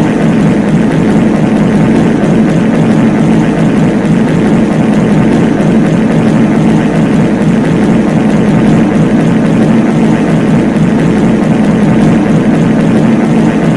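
Many copies of a reverb fart sound effect layered over one another, merging into a loud, steady low rumble in which no single fart stands out.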